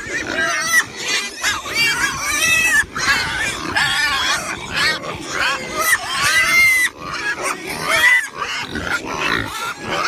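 Pigs squealing: many short, high-pitched calls that rise and fall, overlapping one another with hardly a pause.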